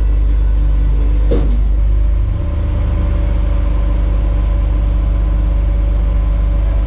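Rollback tow truck engine running steadily with a low hum, a short falling squeal about a second and a half in, and a shift in its pitch shortly after.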